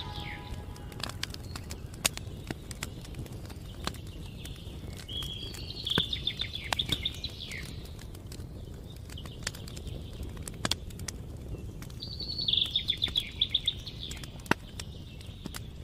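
Wood campfire crackling with scattered sharp pops, under a low steady rumble. A bird gives a run of rapid chattering trills about six seconds in, and again about twelve seconds in.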